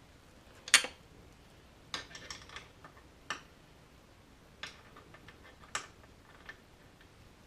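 Scattered, irregular clicks and knocks of tools and metal parts being handled, about seven of them, the loudest a sharp knock under a second in.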